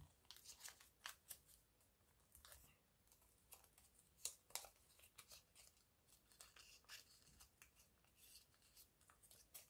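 Faint, irregular crackles and clicks of a sheet of colored origami paper being folded and creased by hand.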